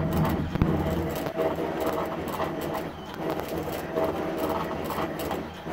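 Pet ID tag engraving machine at work, its motors whirring as the engraving head moves over the tag: a steady low hum with higher tones that swell and fade every second or so.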